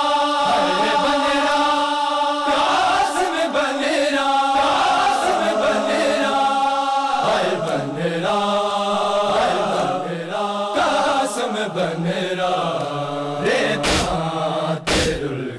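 A group of men chanting a noha, a Shia lament, in unison without instruments: long held sung notes. Near the end come a few sharp thumps about a second apart.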